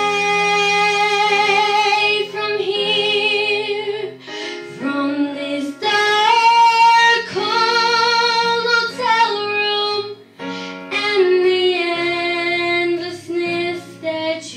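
A young girl singing long held notes with vibrato into a microphone through a PA, over a backing track, with short breaths about four and ten seconds in.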